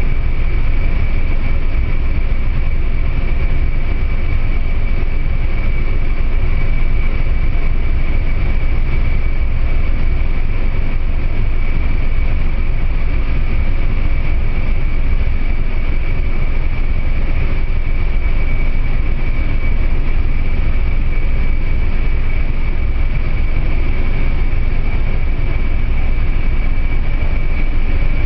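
Aircraft engine noise, a steady loud drone with a constant high whine and no change throughout.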